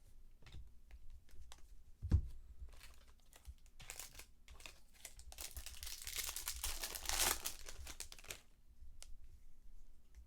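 Baseball card pack wrapper crinkling and tearing as a pack is opened, in two long stretches, with a sharp thump about two seconds in.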